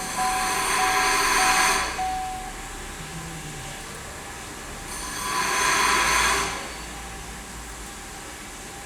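Two bursts of hissing, whirring workshop noise, like a power tool or an air line: the first lasts about two seconds and the second about a second and a half, starting about five seconds in. A steady repeating electronic beep, about two a second, sounds through the first two and a half seconds.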